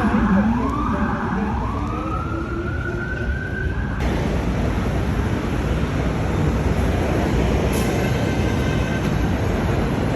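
Emergency vehicle siren wailing, its pitch sliding down and back up over a few seconds. About four seconds in it breaks off abruptly into a loud, steady rumbling noise, with faint high squeals near the end.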